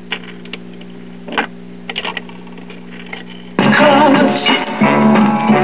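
1965 Admiral mono record player's automatic changer cycling: a steady hum with a few mechanical clicks as a 45 drops onto the platter and the tone arm sets down. About three and a half seconds in, the record starts playing loudly through the speakers via the new-old-stock high-output crystal cartridge.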